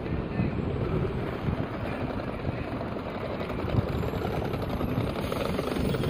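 Low, steady rumble of street traffic, with a Hiroshima Electric Railway streetcar rolling through the intersection, with no wheel squeal.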